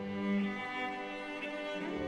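Background music on bowed strings, slow long held notes with a low line beneath.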